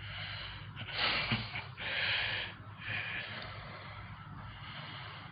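Breathing close to the microphone: a few noisy breaths, the two loudest about one and two seconds in, then fainter ones.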